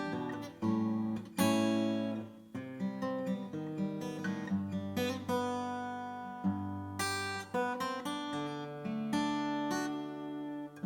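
Martin CEO-7 steel-string acoustic guitar played unaccompanied: a run of chords and single notes, each struck and left to ring into the next.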